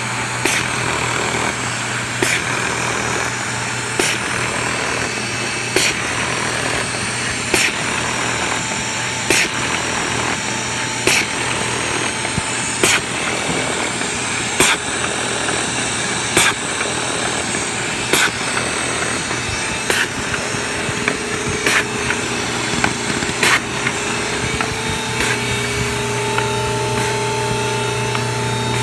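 B & R Moll pile-feeder folder gluer running: a steady mechanical hum and rush of belts and rollers, with a sharp click about every two seconds. A higher steady whine comes in near the end.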